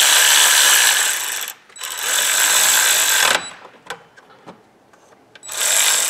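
Pneumatic air ratchet running on the crankshaft pulley bolt, a hissing whir in three runs: two long ones close together, then a short one after a pause of about two seconds.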